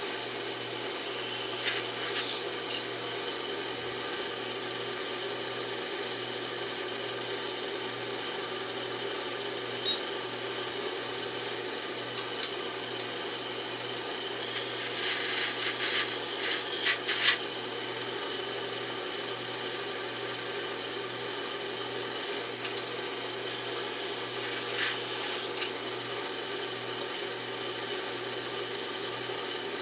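Steady machine hum, with three bursts of rasping hiss of one to three seconds each: about a second in, near the middle, and about three-quarters of the way through. A single sharp click comes about ten seconds in.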